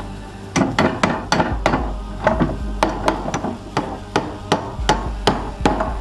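Small hammer nailing hand-forged iron hinge straps to a wooden chest lid: a quick run of sharp blows, about three a second, in short bursts with brief pauses.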